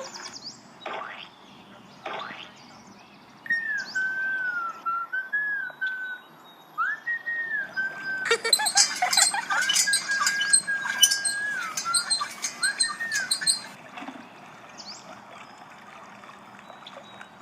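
A series of high chirping, whistle-like notes, some held and some gliding up or down, with a burst of rapid clicking in the middle.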